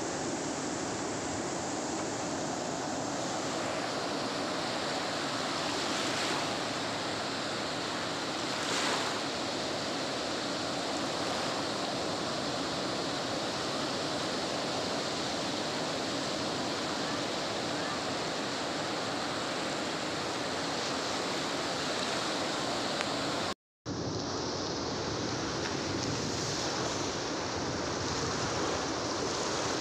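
Ocean surf breaking along the shore and reef: a steady rushing of waves, cut off for a moment about three-quarters of the way through before the same rushing resumes.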